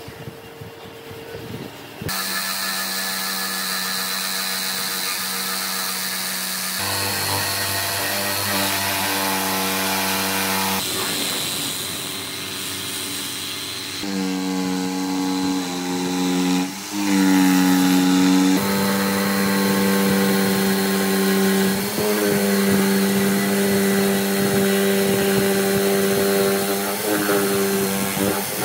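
Makita 4327 corded jigsaw running and cutting a curve through a wooden tabletop: a steady motor and blade hum that starts about two seconds in and jumps in pitch several times.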